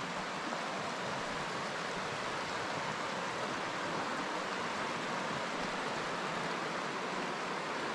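A river running over shallow rocky rapids: a steady rush of water.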